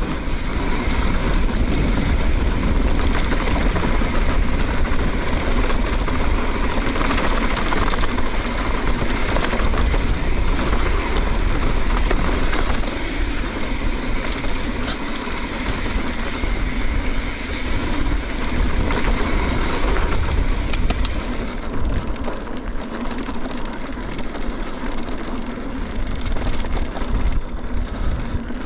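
Mountain bike being ridden down a dirt jump trail, heard from a camera mounted on the rider: a steady rush of tyre, wind and trail noise with rattling from the bike. The high hiss drops away about 22 seconds in as the noise eases.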